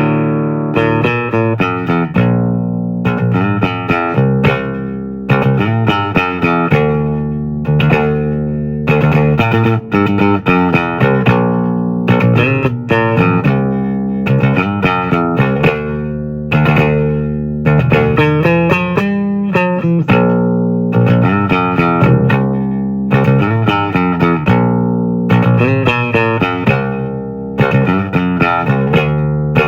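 Instrumental guitar music: plucked notes ringing out one after another over held low bass notes.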